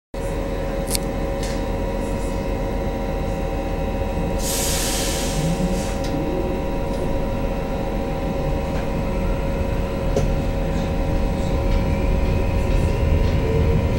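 Inside a Končar low-floor electric multiple unit (HŽ series 6112): the steady hum and whine of its electrical equipment, with a short hiss about four and a half seconds in and a few light clicks. Near the end the motor whine starts rising in pitch and the rumble grows, as the train begins to accelerate.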